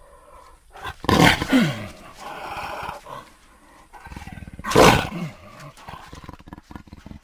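Jaguar roaring twice, a loud coarse call about a second in and another near five seconds, each falling in pitch, with quieter rough growling between and after.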